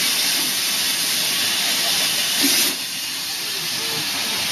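Steam hissing loudly from beneath the front end of a standing WD Austerity 2-10-0 steam locomotive; the hiss eases to a lower level a little under three seconds in.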